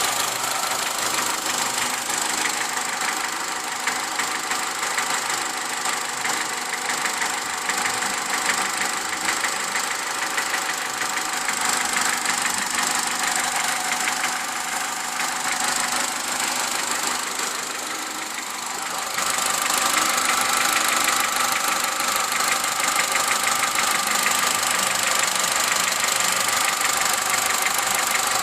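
Opel Corsa C 1.2 Twinport (Z12XEP) four-cylinder petrol engine idling cold with a fast, steady ticking rattle, the clatter the owner hears shortly after starting. Around two-thirds of the way through the sound dips briefly, then comes back a little louder and brighter.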